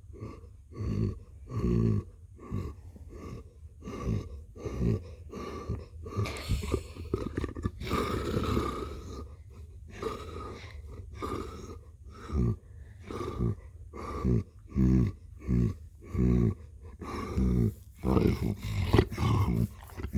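A pet purring close to the microphone: a low rumble pulsing in a steady rhythm, about one and a half to two pulses a second, rising and falling with its breathing.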